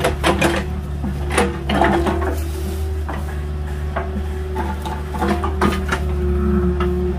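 Agricultural mini excavator's engine running steadily, with irregular sharp clanks and knocks from the bucket and arm at work, several in the first two seconds and a few more after about five seconds.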